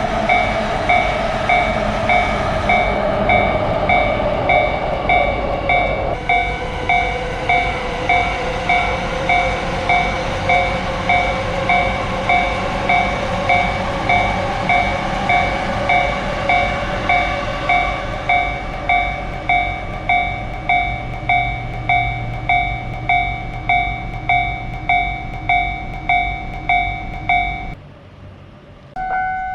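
Japanese railroad crossing warning bell ringing in a steady repeated ding, about one and a half dings a second, over the rumble of a passing train. The ding shifts slightly about six seconds in and cuts off near the end.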